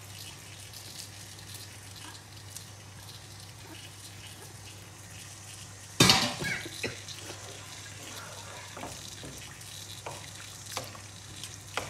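Rice boiling in a pot of water, a steady low bubbling hiss. About six seconds in, grated carrot goes into the pot with a sudden loud knock and scrape. A plastic slotted spatula then stirs the rice against the coated pot, with a few light knocks and scrapes.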